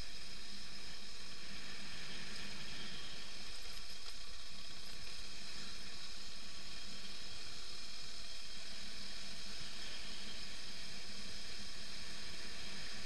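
BMW F 650 GS motorcycle riding along a dirt road: a steady, even hiss over a low hum, with no change in pace or pitch.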